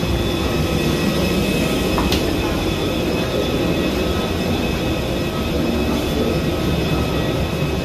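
Steady rumble of a parked airliner, with a faint high whine over it, heard from the aircraft door and jet bridge. A single light click about two seconds in.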